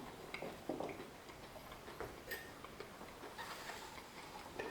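Faint, irregular small clicks and taps of eating at a table: a utensil tapping and scraping a dish, with a couple of brief light clinks.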